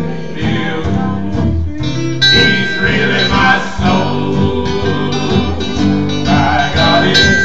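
Acoustic guitar strummed in a steady rhythm, an instrumental bar between sung lines of a gospel song.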